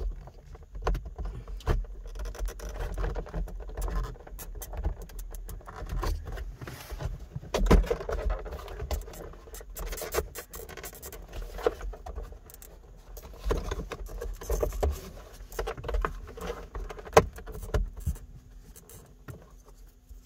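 Plastic overhead console trim above a C7 Corvette's rear-view mirror being pried loose with a nylon pry tool: irregular clicks, creaks and scrapes as its spring clips resist.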